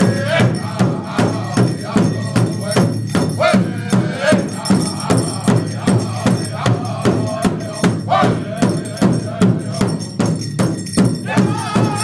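Native American powwow-style drum song: hand drums keep a steady fast beat, about three strokes a second, under group singing with a high, wavering melody.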